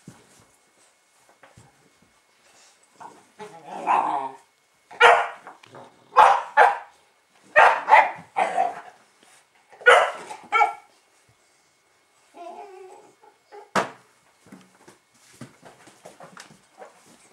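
Fila Brasileiro puppies barking in play: a run of about seven short, loud barks in the middle, with quieter scuffling between, and a single sharp click a few seconds later.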